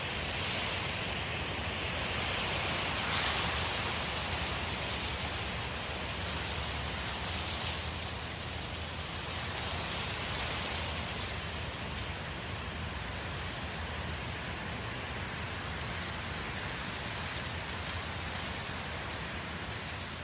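Forest-fire ambience: a steady rush of burning with crackling through it and a low rumble underneath, swelling a little louder now and then.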